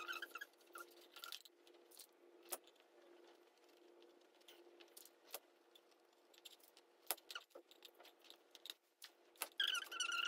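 Scattered light clicks and faint metallic jingling from handling a garden-wire frame and jute fabric, over a faint steady hum.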